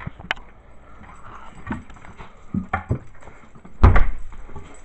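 Dogs moving about, with their feet clicking and scuffling, mixed with rustling and handling knocks. A loud, deep thump comes about four seconds in.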